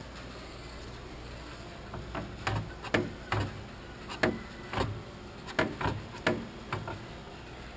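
Cracked fiberglass semi-truck fender being handled and flexed by hand, giving a string of irregular sharp clicks and knocks that start about two seconds in.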